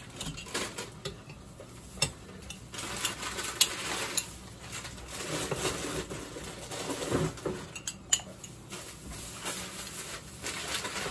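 Metal utensil scraping and clinking against a glass Doña María mole jar as thick mole paste is dug out of it into a blender pitcher, with scattered sharp clicks and knocks.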